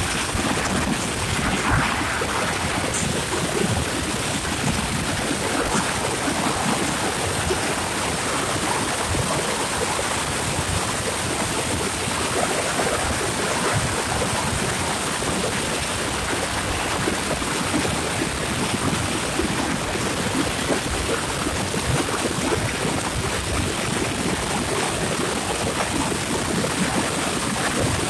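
Steady rushing wind noise on the microphone while travelling along a paved road.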